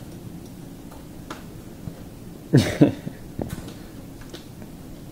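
A short, cough-like double huff about two and a half seconds in, the loudest thing here, with a few faint clicks as the puppy's rope toy and teeth knock against the wire crate bars.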